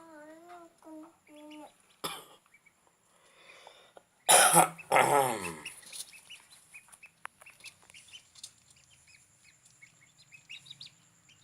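Young chicks hatched from an incubator peeping in many short high chirps. There are a few wavering lower calls at the start, and a loud harsh burst about four seconds in.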